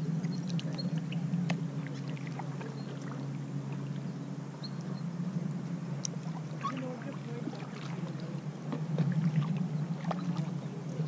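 Kayak paddle strokes: blades dipping into the river and water dripping and splashing off them in scattered small ticks, over a steady low sound of water moving along the hull. The strokes grow louder about nine seconds in.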